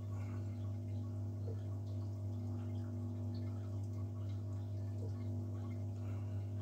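Steady low electrical hum from mains-powered home-brewing equipment, with faint scattered ticks and drips of liquid.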